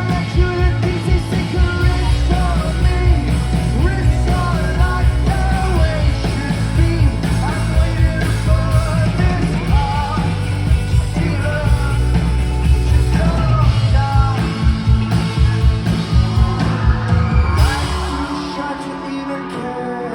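Live rock band playing with lead vocals over drums and bass. Near the end the drums and bass drop away, leaving a quieter, lighter passage.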